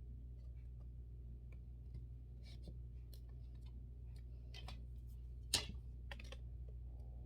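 Scattered light clicks and taps of drying-rack hanging bars being pushed into the plastic connectors of the side frame, with one sharper click about five and a half seconds in, over a low steady hum.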